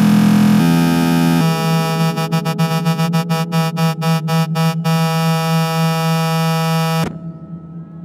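Techno track from a DJ set: loud sustained synthesizer chords with no beat under them, changing chord twice early on, then chopped into a rapid stutter for a few seconds. The music cuts off abruptly about seven seconds in.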